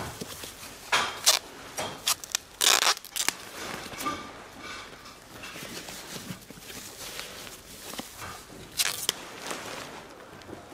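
Nylon tent fabric rustling and crinkling as it is handled and a tent pole is fitted, with a few sharp scrapes and clicks. Louder bursts come about a second in, near three seconds and near nine seconds.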